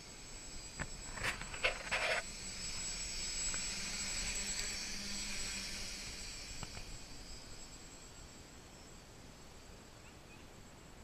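DJI F450 quadcopter's motors and propellers buzzing as the drone flies past, growing louder to a peak about four to five seconds in, then fading away. A few sharp clicks come about one to two seconds in.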